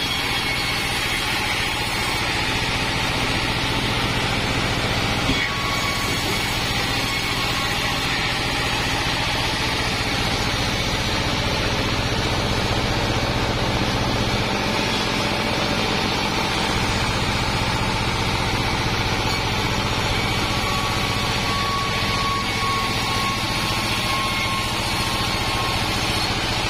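Diesel-powered band sawmill running steadily while sawing Wadang timber: a constant mechanical drone with a low hum underneath, and a single sharp knock about five seconds in.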